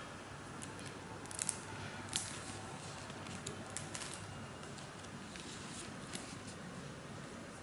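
Pages of a paperback textbook being opened and flipped through by hand: a scatter of short, crisp paper rustles and snaps over a steady low hiss, the sharpest a second or two in.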